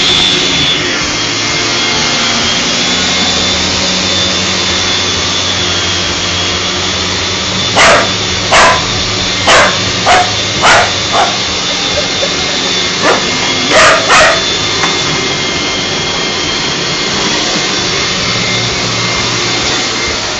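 Vacuum cleaner running steadily with a high whine, while a dog barks at it about nine times over some seven seconds in the middle, then falls quiet as the vacuum keeps running.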